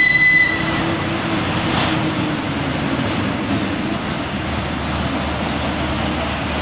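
Narrow-gauge diesel locomotive approaching with its engine running steadily, pulling passenger cars. Its single-tone horn stops within the first second.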